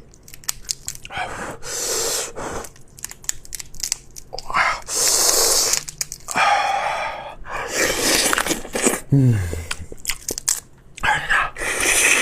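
Crab shell being cracked and torn apart by hand and mouth, with crunching and chewing.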